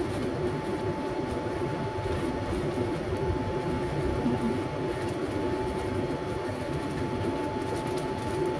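Steady mechanical hum with a thin, high, even whine above it.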